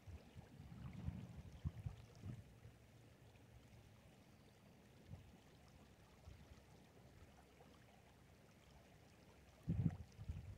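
Faint sound of shallow river water around a gold pan being rinsed. Low rumbles come in the first two seconds, and a louder low rumble comes near the end.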